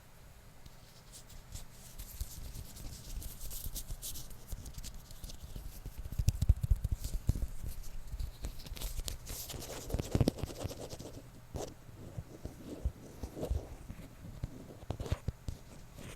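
Close-miked scratching, rubbing and tapping on or right at a microphone: irregular scratchy rustles and small clicks, with heavier low thumps about six and ten seconds in.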